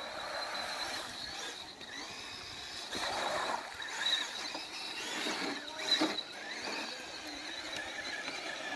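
Electric RC scale crawler truck driving through the course, its motor, gears and steering servo giving a thin, steady high whine.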